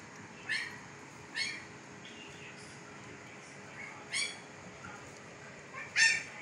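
Two-week-old Siberian husky puppies squeaking and whimpering as they nurse: about four short high-pitched cries, the loudest near the end.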